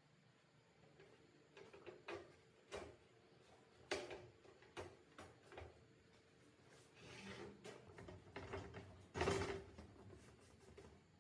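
Light handwork on small parts: scattered clicks and taps, with a short scrape near the middle and a louder one about nine seconds in.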